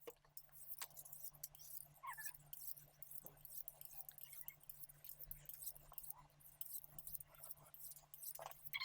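Faint irregular clicks and light scraping from a Lansky guided knife-sharpening clamp and hone being handled and repositioned, under a low steady hum, with a few faint short chirps.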